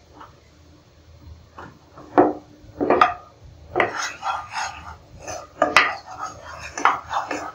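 Wooden spatula scraping and stirring across a nonstick frying pan as sugar cooks down into caramel. It makes a string of short, irregular scrapes that begin about two seconds in.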